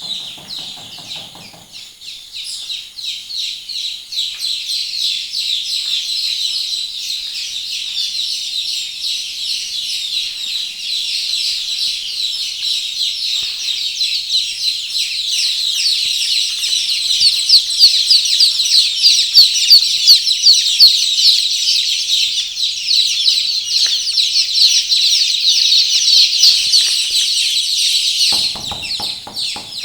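A flock of desi chicks peeping all at once: a dense, continuous chorus of rapid high chirps, growing louder toward the middle.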